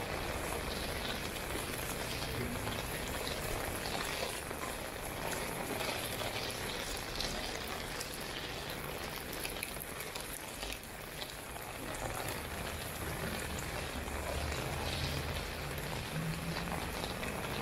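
Steady rain falling on a city street: a dense, even hiss with a fine crackle of drops.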